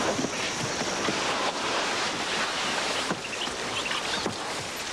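Steady rushing of wind and water, with a few faint knocks.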